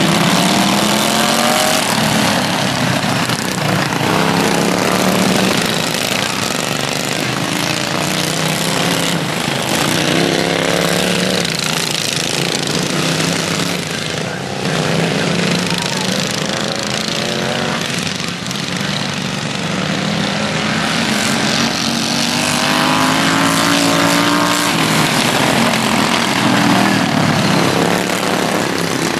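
Several racing ride-on lawn mower engines running hard together. Their pitch rises and falls over and over as the throttles open and close through the race.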